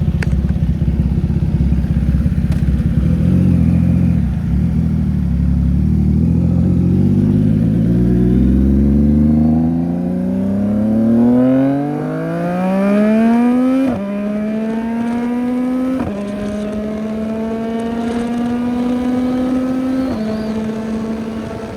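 CFMOTO 675NK's inline three-cylinder engine running low for several seconds, then revving up under acceleration. It shifts up through the gears: the pitch drops abruptly three times in the second half and climbs again after each shift.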